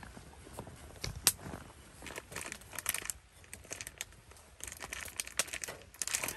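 Plastic packaging crinkling and rustling in irregular bursts as it is handled, with a sharp click about a second in.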